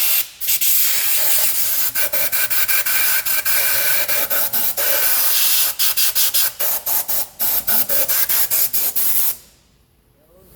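A high-pressure spray gun hissing, used to clean a very dirty engine. It runs steadily at first, then stutters with rapid short breaks of about three to four a second, and cuts off about a second before the end.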